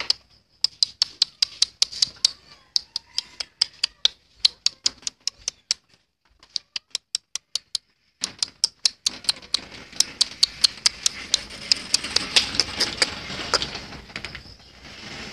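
Rapid, regular clicking, about five sharp clicks a second, breaking off briefly a few times, with rustling noise under it in the second half.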